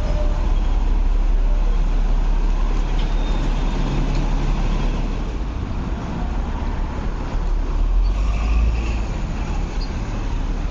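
Street traffic dominated by double-decker buses running and pulling past, a steady low rumble that swells about eight seconds in.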